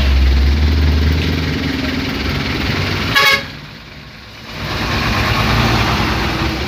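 Road traffic in a jam: vehicle engines running, with a heavy engine rumble in the first second. About three seconds in there is one short horn toot, and then the sound drops away for about a second.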